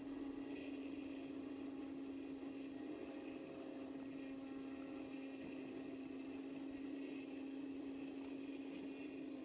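Electric motor and propeller of a HobbyZone Glasair RC plane in flight, heard from the on-board camera: a steady hum that holds one pitch.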